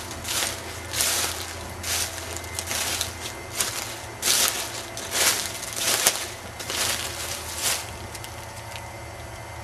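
Crunching footsteps, roughly one a second, over a low steady hum.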